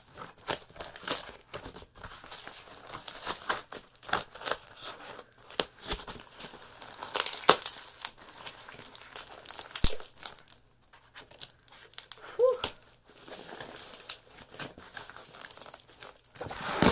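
Brown plastic packing tape crinkling and ripping as a heavily taped cardboard box is torn open by hand, in irregular bursts of crackles and tearing.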